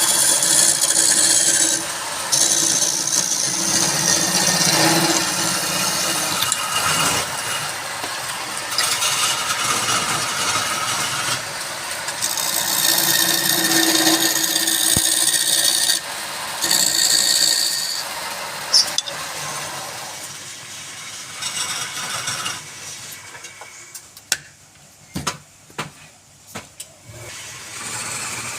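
Wood lathe running while a turning tool cuts into the spinning wood, the cutting noise rising and falling every few seconds. Near the end the cutting dies down, and a few sharp knocks follow.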